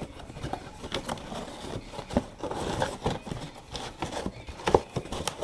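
Irregular taps, clicks and rustling of objects being handled close to the microphone, with a sharper knock near the end.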